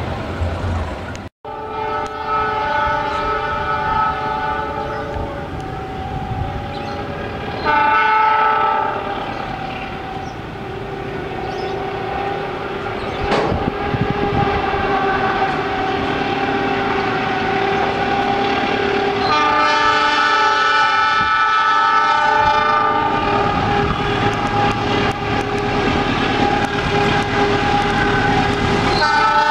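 Multi-tone air horn of a CC 206 diesel-electric locomotive hauling the Argo Parahyangan, sounded in long, nearly unbroken chords as the train approaches, with louder blasts about 8 seconds in and about 20 seconds in. Under the horn the train's running noise grows louder toward the end.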